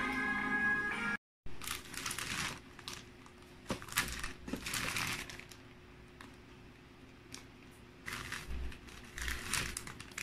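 Plastic zip-lock bag crinkling in the hands while crackers are packed into it, in two spells of rustling with a couple of light taps between them. Music plays for about the first second, then cuts off.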